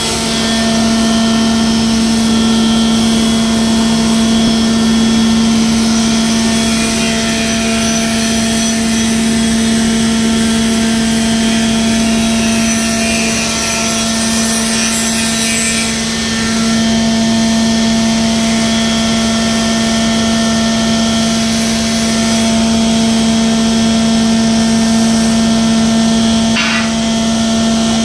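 Machinery running steadily: a loud, constant drone with a strong steady hum and several fixed higher tones over a noisy rush, with a brief click near the end.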